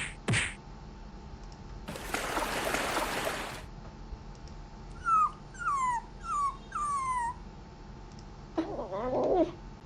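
A run of short sound-effect clips played one after another: a hiss-like burst of about a second and a half, then a dog whimpering in four short falling whines, then a short rougher sound with wavering pitch near the end.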